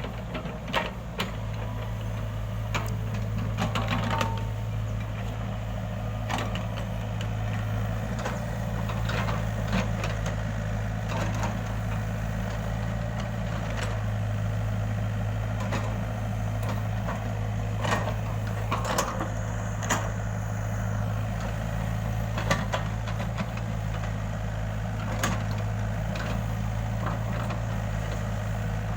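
Excavator's diesel engine running steadily, with scattered knocks and cracks of material being broken and moved.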